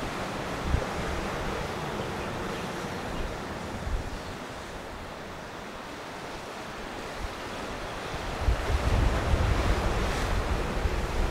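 Wind buffeting the microphone over a steady wash of sea waves, with the gusts strongest near the end.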